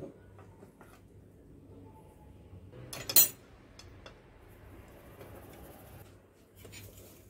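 A sharp metal clatter against a glass mixing bowl about three seconds in, as a mixer beater and mesh strainer are handled over it; otherwise a few light taps while powder is sifted through the strainer into chocolate batter.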